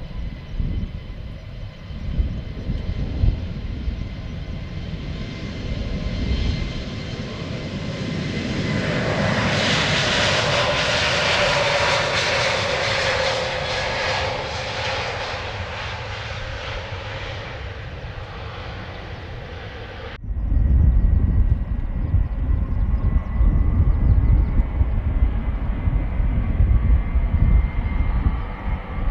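Airbus A321neo jet engines at takeoff power, the roar building to a peak about ten seconds in and fading as the airliner climbs away. About twenty seconds in the sound cuts suddenly to a louder, gusty low rumble.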